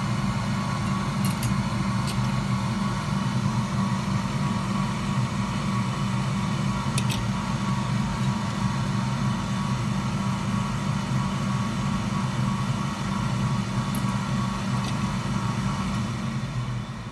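Steady mechanical hum, like a small fan or motor running, with a few faint ticks; the hum drops away right at the end.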